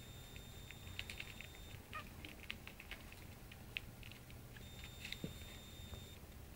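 Faint scattered soft clicks and rustles of small dogs shifting and nuzzling in a fleecy bed. A thin steady high tone sounds twice, for a second or so each time.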